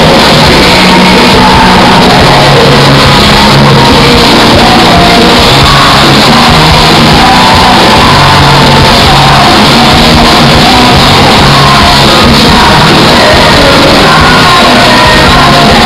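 Live rock band playing with a singer, heard loud from among the concert audience in a large hall.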